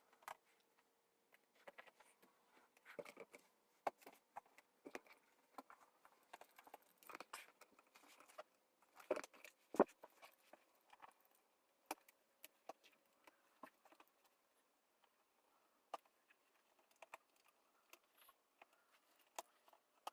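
Quiet, scattered clicks, taps and short rustles of small objects being handled on a table, busiest around the middle, over a faint steady hum.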